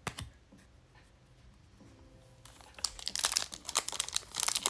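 A trading card pack wrapper crinkling as it is handled and torn open, starting about three seconds in after a single click near the start. The pack is a 2020 Topps Update Series pack.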